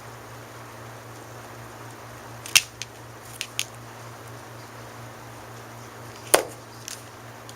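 Sharp clicks and taps of small tools and parts handled on a workbench: three or four a little over two seconds in, then two more near the end, over a steady low hum.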